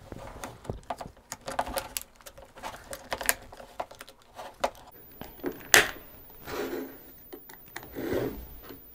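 Plastic handle housing of a Dyson V8 cordless vacuum being fitted and pressed closed by hand: an irregular run of small clicks, taps and scrapes, with one sharper click about six seconds in.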